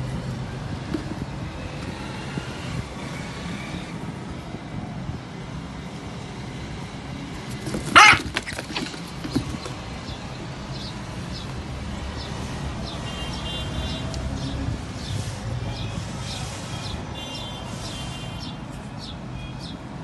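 Steady low rumble of background noise, broken about eight seconds in by one short loud squawk, with faint high chirping bird calls through the second half.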